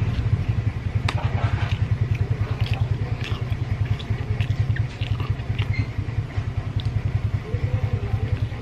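A low, evenly pulsing motor rumble, about eight beats a second, with scattered soft clicks and smacks of someone eating roast chicken with his hands and chewing.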